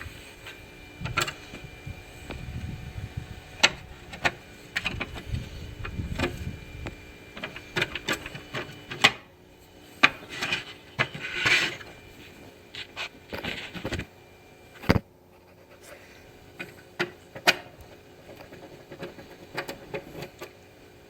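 A screwdriver and hands working on a Brother VX-1120 sewing machine's housing while a screw is taken out: scattered clicks, scrapes and knocks, with one sharp knock about two-thirds of the way through.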